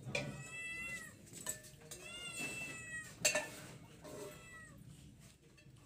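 Three high-pitched animal cries, each under a second and dropping in pitch at the end; a single sharp knock a little past the middle is the loudest moment.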